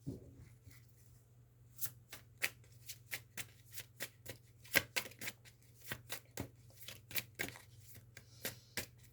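A tarot deck being shuffled by hand: a run of crisp, irregular card snaps that starts about two seconds in, two or three a second.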